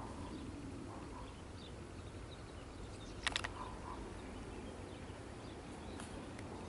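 Quiet outdoor ambience with a low, even background noise and a few faint bird chirps, and a quick run of sharp clicks about three seconds in.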